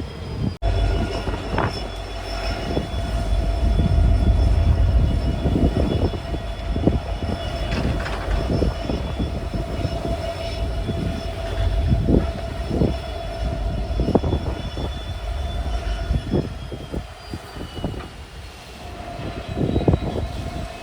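A locomotive hauling loaded goods wagons along the rail line: a steady low rumble and engine whine, with repeated irregular clanks of wheels and wagons on the track. The whine slides down in pitch about three-quarters of the way through.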